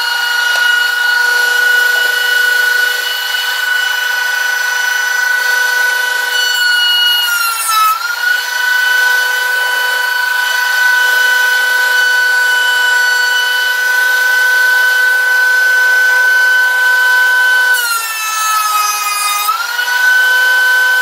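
DeWalt 13-inch benchtop thickness planer running with a steady high motor whine. About seven seconds in, and again near the end, the pitch sags for a second or two under a rougher cutting noise as a board passes through the cutterhead, then climbs back to full speed.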